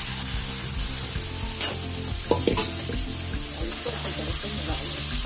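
Boiled mixed beans poured into a hot kadhai of fried masala and mustard oil, sizzling as they are stirred with a metal spatula, with a few scrapes and knocks of the spatula on the pan about two seconds in.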